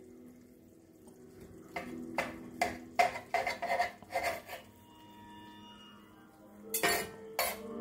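Chef's knife slicing brisket and knocking and scraping against the bottom of a cast iron skillet, with a fork's tines clinking on the pan. The clinks and scrapes come in a quick run in the middle, then two more near the end.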